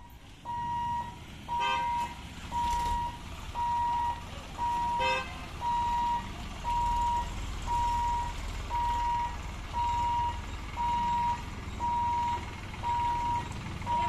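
An electronic warning beeper sounds a steady high tone in half-second beeps, about once a second, over the low rumble of road-vehicle engines. Two short vehicle horn toots come at about two and five seconds in.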